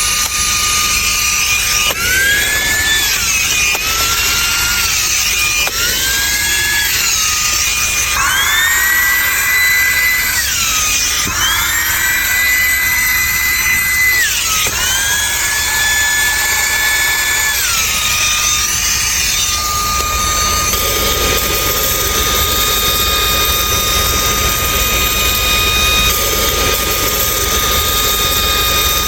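Cordless handheld car vacuum-blower's small high-speed motor running with a steady whine and a rush of air. The whine jumps up in pitch and settles back down several times in the first two-thirds, then holds at its lower pitch, with the air rush turning fuller near the end.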